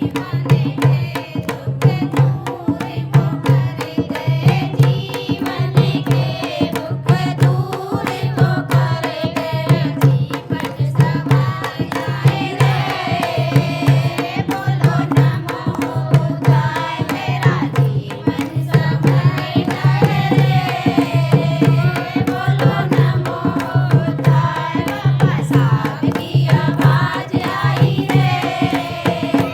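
A Hindi devotional song (Bhim geet), sung with a high, gliding melodic line over a hand drum beating a steady, repeating rhythm.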